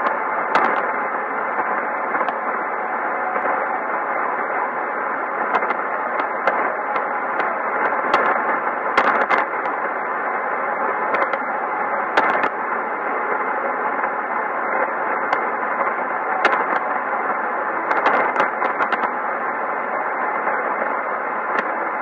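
Sony ICF-2001D shortwave receiver tuned in AM narrow sync to a weak signal on 3375 kHz in the 90 m tropical band: steady, narrow-band hiss with frequent crackles of static. Several crackles come close together about nine, twelve and eighteen seconds in.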